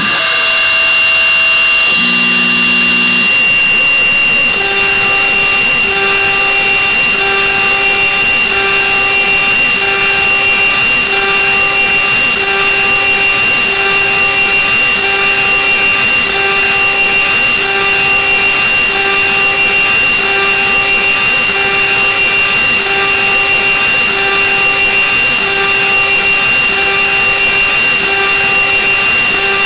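Mini CNC router milling carbon-steel sheet with an end mill: the spindle runs with a steady high whine under a dense grinding hiss of the cut, and a lower hum pulses evenly a little more than once a second. The cutting noise grows fuller about four seconds in.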